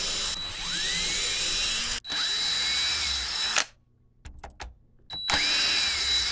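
Cordless drill-driver backing wood screws out of a wooden rack rail in several separate runs, its motor pitch rising as it spins up each time. A short pause with a few small clicks falls about halfway through.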